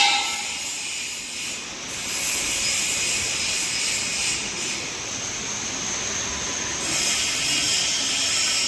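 A steady rushing hiss, dipping slightly about two seconds in and rising again near the end.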